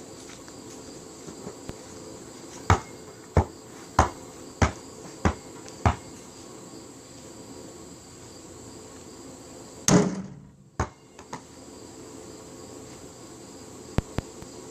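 Basketball dribbled six times, about one bounce every 0.6 s, then a single louder thud about ten seconds in, with a second knock just after. A steady high-pitched whine runs underneath.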